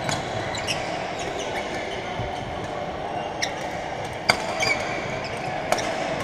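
Badminton rackets striking shuttlecocks, with the sharpest hit about four seconds in, and shoes squeaking on the court floors, over a steady murmur of voices in the hall.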